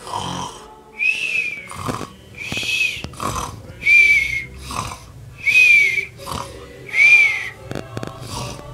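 Cartoon-style snoring: a noisy snore-breath followed by a whistle that rises and falls, repeating about every one and a half seconds, five times.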